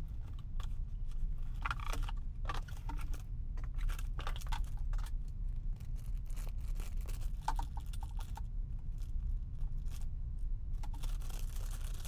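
Cardboard packaging and a thick plastic bag rustling and crinkling in irregular short bursts as a wrapped toy vehicle is lifted out of its box and handled.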